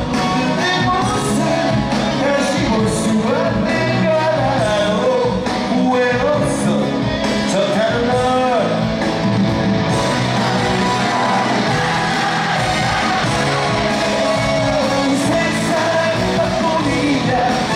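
Male pop singer singing live into a microphone over a loud rock-style band, heard from the stands of a large arena hall.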